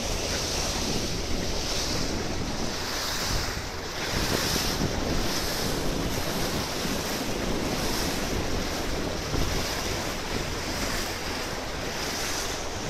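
Steady rush of wind buffeting the microphone and water streaming past the hull of a small boat under way.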